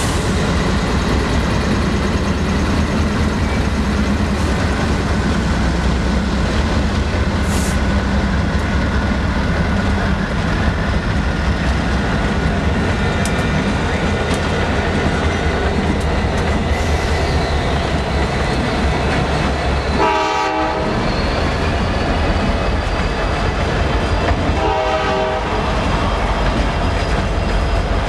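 Norfolk Southern diesel locomotives, a GE Dash 9 and an EMD SD60, pass close by under power with a heavy rumble, followed by empty tank cars clattering over the rail joints. A horn sounds twice, briefly, near the end.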